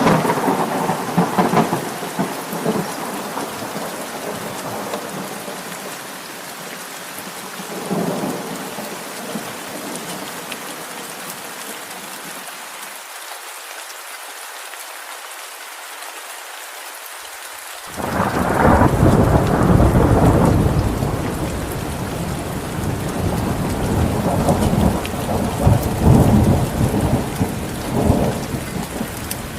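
Steady heavy rain with thunder: rumbling fades over the first few seconds, a softer roll comes around eight seconds in, then a loud thunderclap about eighteen seconds in is followed by long rolling rumbles.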